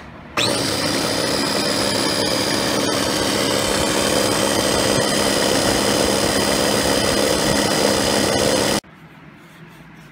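Small electric food processor running, blending a liquid mayonnaise dressing. The motor whine rises briefly as it spins up, runs steady for about eight seconds, then stops suddenly.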